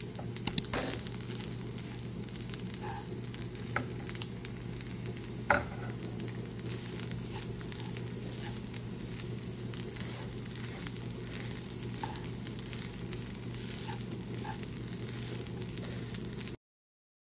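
Egg fried rice sizzling in a frying pan while a spatula stirs and pushes it around, with a few sharp scrapes and clicks of the spatula against the pan. The sizzling cuts off suddenly near the end.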